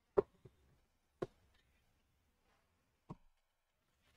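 Three short, faint knocks of cardboard packaging being handled as an inner carton is lifted out of its shipping box: the loudest just after the start, another about a second later, and a last one near three seconds in.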